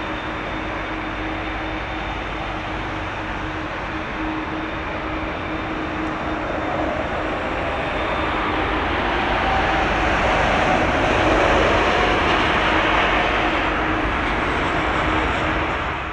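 Airbus A330-300 airliner's Rolls-Royce Trent 700 turbofans running as it rolls along the runway after landing: a steady jet roar with a held hum underneath, growing louder in the second half.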